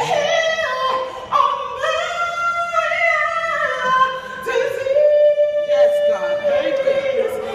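A woman singing a gospel song solo, holding long notes that slide up and down between pitches, with one long sustained note in the second half.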